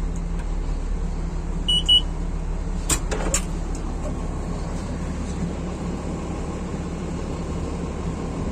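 Don Roque 150 combine harvester running steadily with a constant low drone. Two short high beeps come near two seconds in, then two sharp knocks about a second later.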